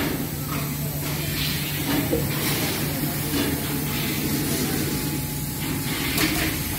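Steady factory-floor machinery noise: a constant low hum with a hiss over it.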